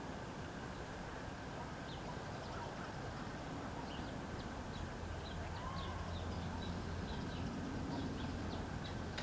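Small birds chirping: short, high, quick notes, scattered at first and coming thicker from about halfway, over steady background noise. A low steady hum joins about halfway through.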